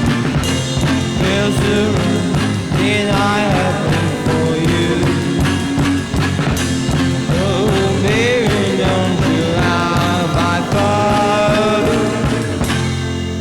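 Background rock music with a steady drum beat and bending guitar or vocal lines.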